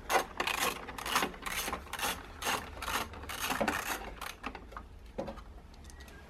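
Hands working the nuts off the windscreen bracket's bolts: a run of short rubbing, rasping strokes, about three a second, thinning out after about four seconds.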